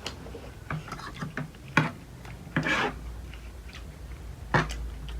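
Close-up eating sounds: scattered sharp clicks and taps of utensils and dishes, with a short noisy burst about halfway through, over a low steady hum.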